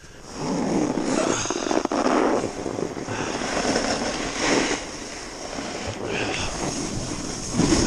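Snowboard sliding and scraping over packed snow, the rushing noise swelling and easing in surges, mixed with wind on the microphone.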